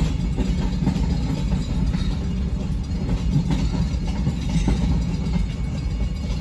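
Freight train of boxcars and covered hoppers rolling steadily past, a continuous low rumble with a few wheel clicks over the rail joints, heard from inside a car.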